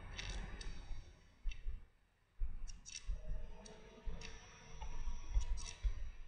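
Faint, irregular computer-mouse clicks, a dozen or so spread unevenly, over a low background rumble, as slides are clicked through in a presentation.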